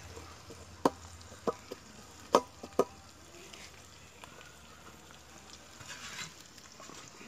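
A cooking spoon knocking sharply against a pot about five times in quick succession as food is stirred, over a faint sizzle from the frying food. A short soft scrape comes near the end.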